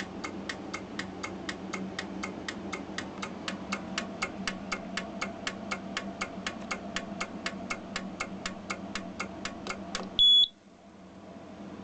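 Edwards 2400 fire alarm panel's relays clicking steadily, about four clicks a second, pulsing the alarm circuit in march time, over a low steady hum. About ten seconds in the clicking stops and the panel's trouble sounder gives one short, loud, high beep, the trouble signal for missing battery backup.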